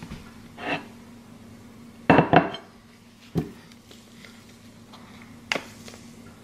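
Kitchenware clinking and knocking on a countertop as a ceramic plate is handled: a few separate knocks, the loudest a quick double clatter about two seconds in. A steady low hum runs underneath.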